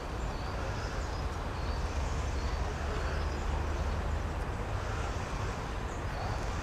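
A small bird repeating a short high chirp over and over, about one every half second to a second, over a steady low rumble.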